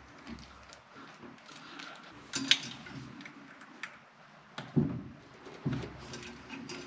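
Small clicks and rustling of hands fitting a crimped wire connector onto an electronic choke terminal, with a sharper click about two and a half seconds in and two dull knocks near the end.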